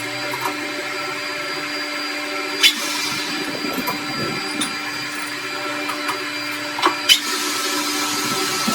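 A workshop machine running with a steady hum, with a sharp click about three seconds in and two more close together near seven seconds.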